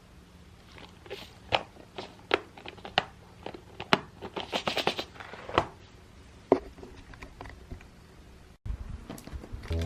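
Irregular sharp clicks and taps of small objects, thickening into a quick run about halfway through.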